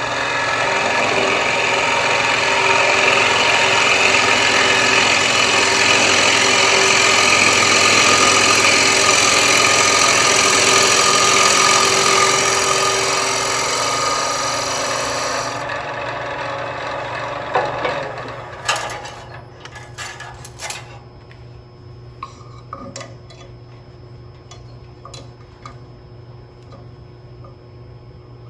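Bowl scraper taking very light finishing cuts inside a wooden bowl spinning on a lathe: a steady scraping hiss that fades out over about fifteen to eighteen seconds. Then a few sharp clicks and faint taps over a quieter steady hum.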